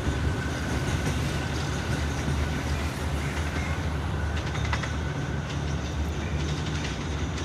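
Diesel locomotive running with a steady low rumble, with a few faint clicks.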